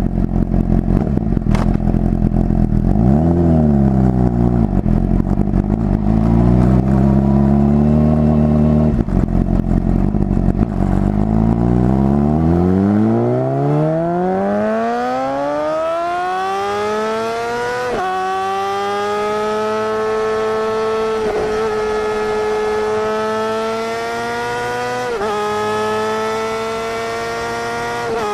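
Motorcycle engine revving, then accelerating hard, its pitch climbing steadily for several seconds. It then holds a high pitch with brief dips about every three to four seconds.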